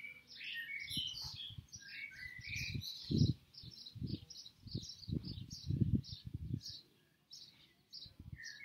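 Small birds chirping in quick, repeated high notes throughout. A few low muffled bursts come between about three and seven seconds in.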